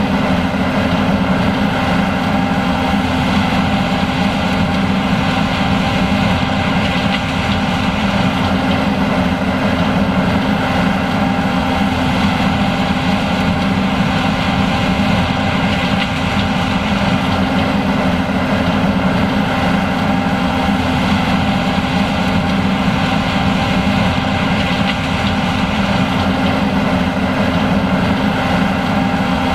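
John Deere S780 combine running steadily while harvesting corn: engine and threshing machinery making a constant, unchanging drone with several steady whining tones.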